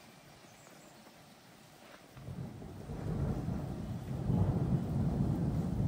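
A thunder rumble starts about two seconds in, low and rolling, and grows louder as it continues.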